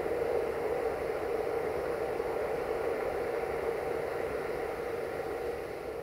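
A steady hum with hiss, easing off slightly near the end.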